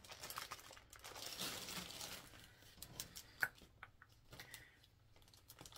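Plastic packaging crinkling and rustling faintly as hands dig through a bag of small plastic-wrapped packets, with one sharp click about three and a half seconds in.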